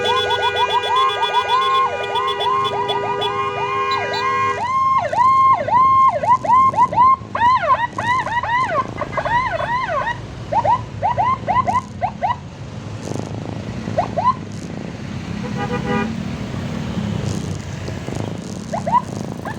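Electronic emergency siren on yelp, sweeping up and down several times a second, with a steady horn held over it for the first four or so seconds. After about twelve seconds the siren drops to a few short chirps, and the horn sounds briefly about sixteen seconds in, over road and engine noise.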